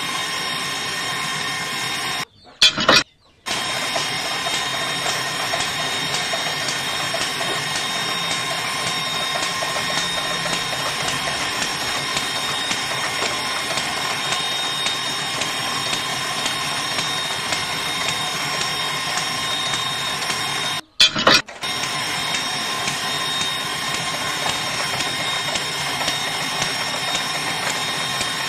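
Small DC hobby motor of a toy borewell drilling rig running steadily with a high whine and a gear-like rattle, turning a metal drill rod into wet sand. Twice it cuts out briefly with sharp clicks.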